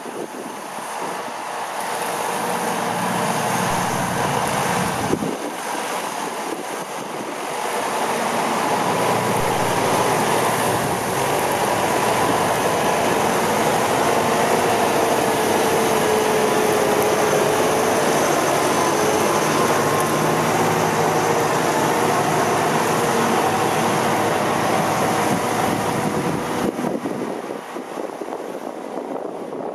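Massey Ferguson 445 tractor's diesel engine running under working load, its pitch wavering, growing louder over the first several seconds and dropping off near the end.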